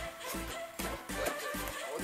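Background music with a steady beat: a repeating bass line under pitched melody notes.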